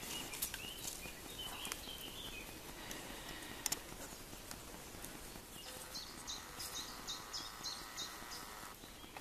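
Quiet woodland with a small songbird singing a run of short, high, repeated notes, about three a second, in the second half, after a few scattered chirps earlier. Under it are the dogs' breathing and soft rustles and steps on the path.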